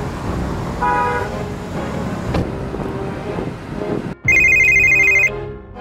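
A mobile phone rings for about a second near the end, a loud, high electronic ring. Before it, the steady hum of a car being driven.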